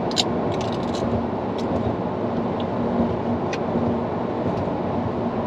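Steady road and engine noise inside a moving car's cabin, with a low steady hum and a few faint clicks.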